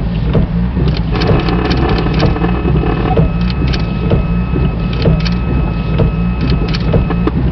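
Steady low vehicle rumble, like an engine running, with a faint steady high whine over it for most of the time and scattered light clicks.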